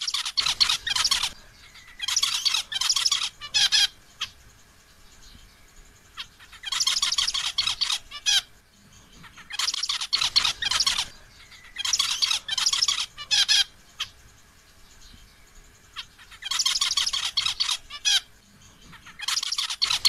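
Male zebra finch singing: bursts of rapid, high song notes about one to two seconds long, repeated every couple of seconds.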